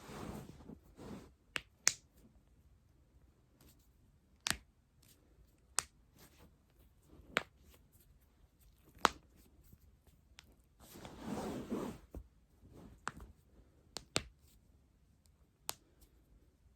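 A person's joints cracking: about ten sharp, separate pops spaced irregularly a second or two apart. Soft rustling of movement comes at the start and again about eleven seconds in.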